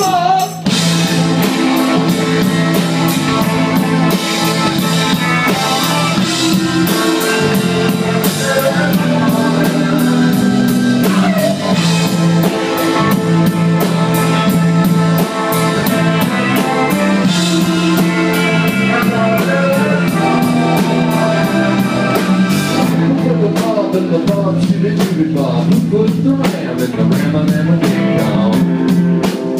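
Live rock band playing with electric guitar, keyboard and drum kit; keyboard chords are held under the band. The drum hits become busier and more prominent near the end.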